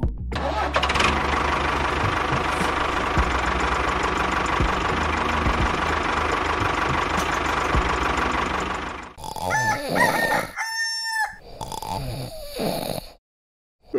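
A tractor engine running steadily with a low chug, cutting off after about nine seconds. Then chickens cluck and a rooster crows.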